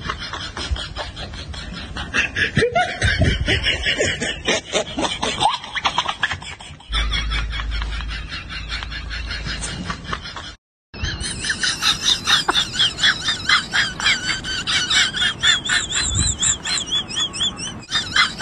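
Laughter in rapid, choppy bursts, broken by a brief dropout to silence a little past halfway, then more quick repeated laughing.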